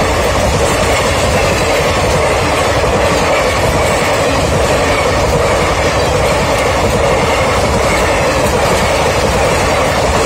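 Indian Railways passenger train coaches rolling past at speed: a steady, unbroken noise of steel wheels running on the rails.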